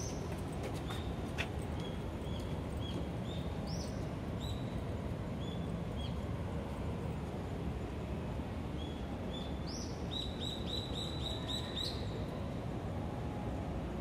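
Small birds chirping: short high chirps at irregular gaps, then a quick run of about seven near the end, over a steady background hum of city noise.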